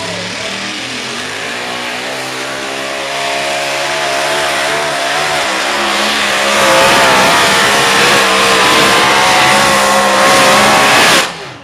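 Racing car engine running at high revs, its pitch rising and wavering as the revs change. It grows louder about halfway through, then cuts off suddenly near the end.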